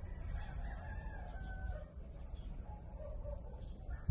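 A rooster crowing: one long crow that falls slightly in pitch over about two seconds, and another starting near the end, over a steady low rumble.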